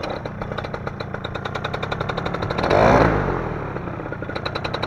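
Paramotor trike engine running with a steady, rapid firing pulse. About three seconds in, a louder engine surge swells and fades.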